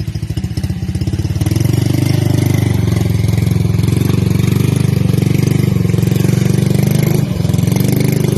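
Vehicle engine running hard with a steady pulsing note, getting louder about a second in as it works under load, then easing off briefly near the end before picking up again.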